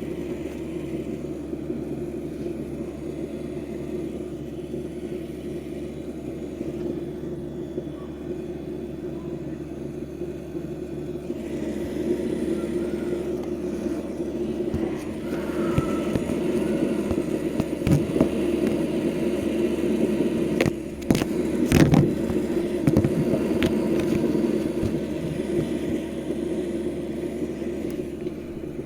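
Noisy HKT electric fuel pump in a 2002 Toyota Corolla running with the engine off, giving a steady buzzing drone that grows a little louder partway through. A few sharp knocks come between about 18 and 22 seconds in.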